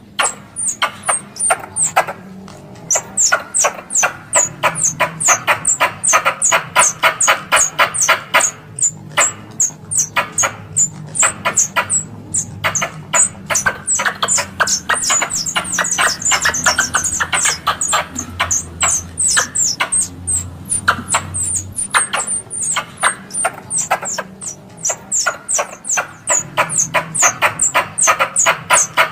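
Squirrel calls: a fast run of sharp chirps, several a second, kept up without a break. This is the kind of call played as a lure to draw squirrels in for hunting.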